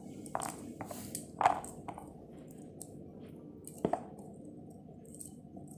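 Pomegranate rind being broken and pried apart by hand: a few sharp cracks and clicks, the loudest about a second and a half in and another near four seconds. Under it the steady hum of a kitchen exhaust fan.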